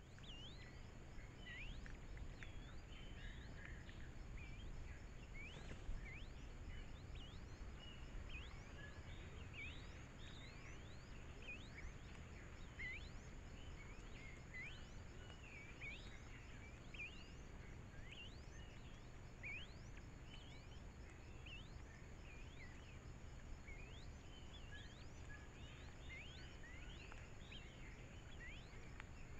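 Faint birdsong: many short, quick chirps, some rising and some falling, repeated irregularly throughout, over a steady low hum.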